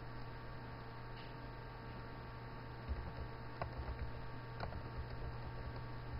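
Steady low electrical hum on the recording, with a few faint computer-keyboard keystroke clicks about halfway through.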